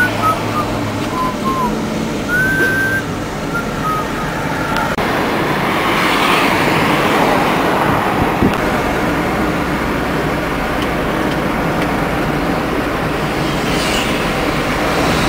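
Steady traffic and road noise from a moving car: tyre and engine rush with other vehicles passing. A few short high whistles sound in the first few seconds.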